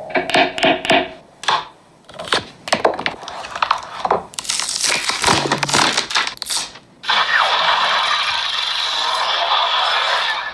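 Packaging being handled and opened: a quick run of clicks, taps and crackles from box and packing parts. About seven seconds in, a steady hiss takes over.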